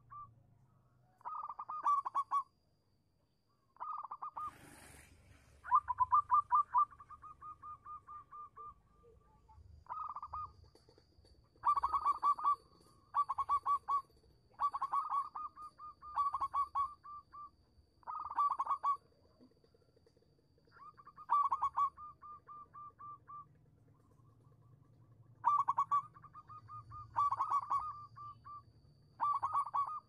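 Zebra dove (perkutut) calling over and over: phrases of rapid staccato coos, from half a second to about three seconds long, with short pauses between them.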